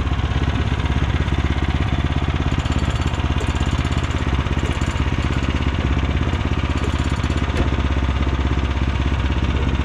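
Portable sawmill's gasoline engine running steadily at an even speed.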